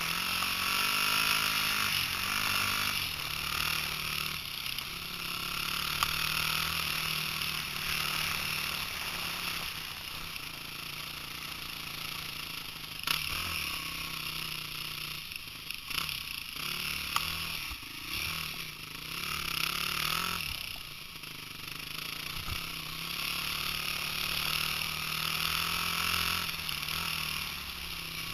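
Dirt bike engine running under way, its pitch rising and falling with the throttle. It eases off through the middle stretch, where a few sharp knocks stand out.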